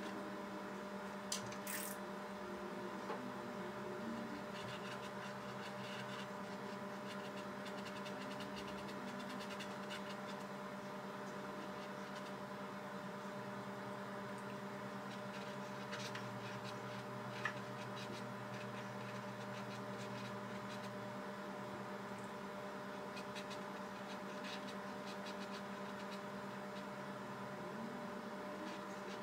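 A steady electrical hum made of several fixed tones over a faint hiss, with a few faint clicks and taps, the clearest about a second and a half in and again around the middle.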